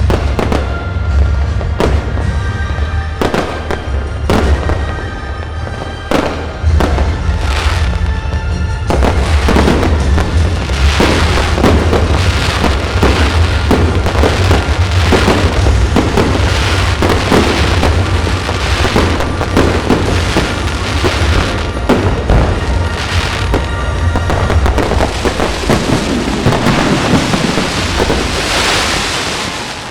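Aerial fireworks going off: repeated bangs and crackling bursts, coming thick and fast from about nine seconds in, over loud music with a heavy bass line.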